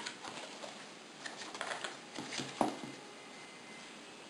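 A cardboard box being opened by hand: light rustling and scraping of the paperboard flaps and insert, with a sharp tap about two and a half seconds in.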